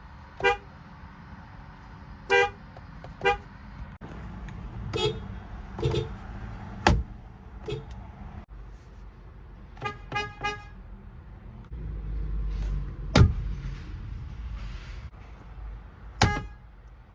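Car horns of different cars honking one after another: about a dozen short, quick taps of differing pitch, including a fast triple beep about ten seconds in. A steady low rumble of engines runs underneath and swells briefly about twelve seconds in.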